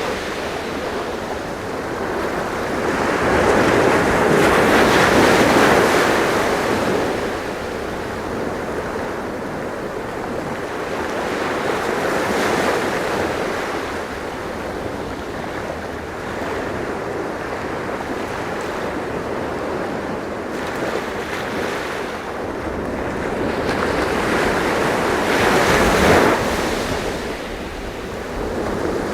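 Sea waves washing in as a steady rush of surf, swelling louder three times as bigger waves break.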